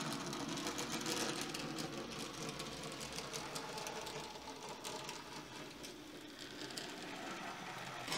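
H0e-scale model of a C50 narrow-gauge diesel locomotive running with its wagons: a steady mechanical whirr of a small motor and gears with rapid fine ticking. It grows fainter after about four seconds as the train moves off along the layout.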